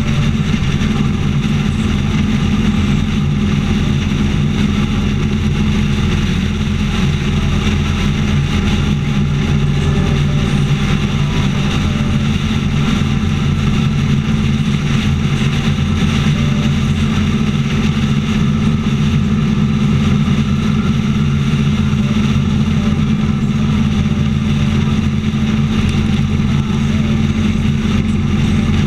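Motorcycle engine running steadily at highway cruising speed, heard close up from a camera mounted on the bike, with a constant rush of wind and road noise over it.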